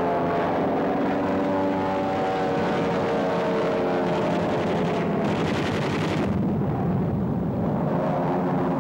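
Propeller aircraft engines droning, their pitch falling slowly over the first few seconds, then giving way to a deep, dense rumble from about six seconds in.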